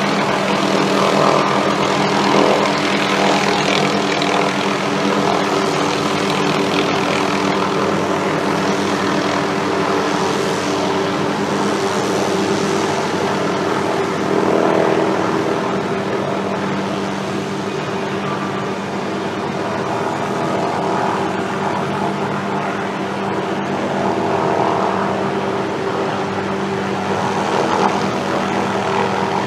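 Helicopter running steadily close by: a constant engine and rotor drone with a steady hum, swelling and easing slightly in loudness.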